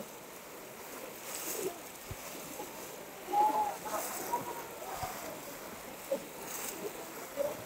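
A large crowd wading and splashing through shallow water while plunging bamboo polo fish traps, with a few distant shouts from the crowd, the loudest about three and a half seconds in.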